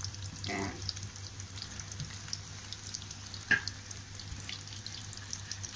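Masala-coated elephant yam pieces deep-frying in hot oil: a steady sizzle with scattered small pops, the sharpest about three and a half seconds in.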